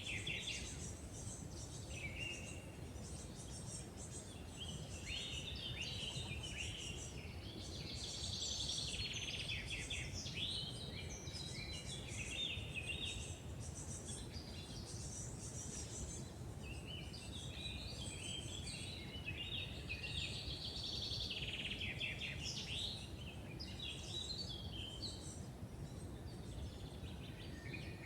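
Woodland birds singing, several songs and chirping calls overlapping throughout, over a low steady background rumble.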